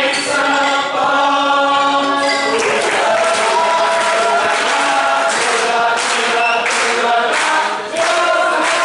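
Mixed choir of men and women singing a Swabian folk song in chorus, with sharp percussive hits scattered through the second half.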